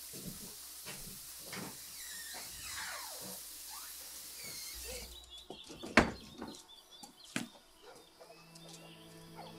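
Birds chirping over a steady background hiss, with light clicks. About six seconds in comes a loud sharp knock, then a smaller one over a second later, and music begins near the end.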